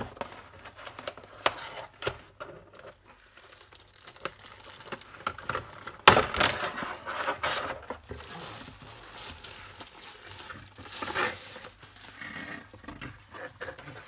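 Packaging handled during an unboxing: plastic and paper wrapping crinkling and rustling, with cardboard scraping and small knocks. A sharp knock about six seconds in, then a couple of seconds of louder rustling.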